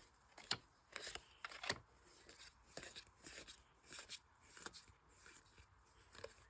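Trading cards being handled and flicked through by hand: a run of light snaps and soft rustles, the sharpest near the start.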